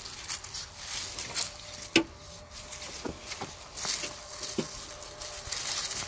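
Garden fork digging into dry, clumpy soil: scattered crunches and scrapes of breaking earth, with one sharp knock about two seconds in.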